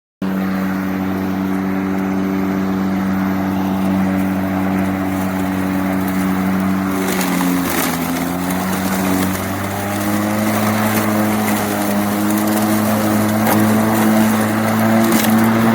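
Small gasoline lawn mower engine running steadily. Its pitch sags briefly about halfway through, as if under a moment of load, then picks back up slightly higher.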